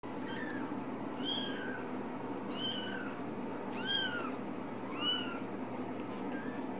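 Young kitten meowing: four high, thin cries about a second apart, each rising then falling in pitch, with fainter cries near the start and end, over a steady low hum.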